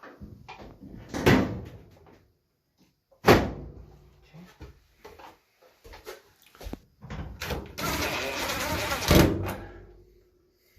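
Sharp knocks and clatter of the dryer's cabinet parts being handled during reassembly. About three-quarters of the way through comes a scraping rasp lasting about two seconds.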